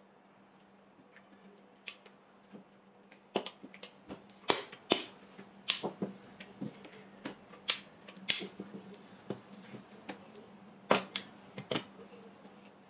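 Irregular sharp taps and knocks, a dozen or so spread over about ten seconds, as pieces of bun dough are rolled into balls by hand and set down on the work surface.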